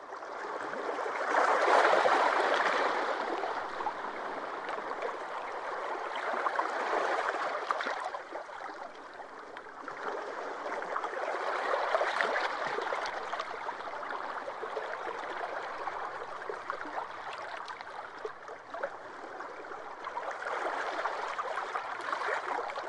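Water running and splashing, a steady rushing noise that swells louder and softer every few seconds.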